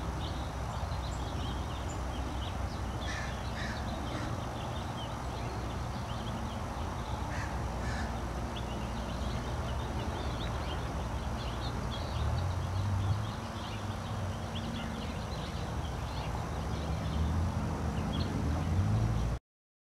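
Outdoor ambience of birds calling, with many short high chirps and a few louder, harsher calls about three seconds and eight seconds in, over a steady low rumble. The sound cuts off suddenly near the end.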